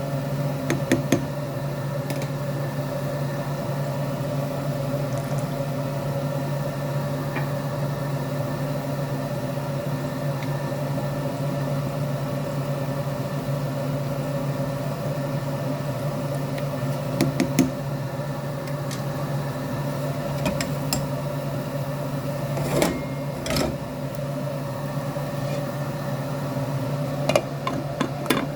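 A steady mechanical hum of a running machine, with a few sharp clicks and knocks about a second in, in the middle and near the end.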